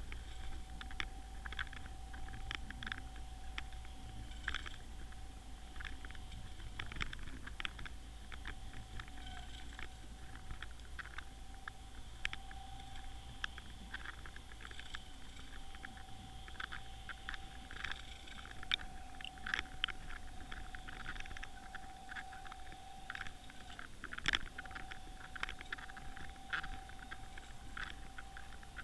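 Sound picked up underwater: a steady mid-pitched hum that drops out briefly about seven seconds in and again near the end, under a constant irregular crackle of sharp clicks.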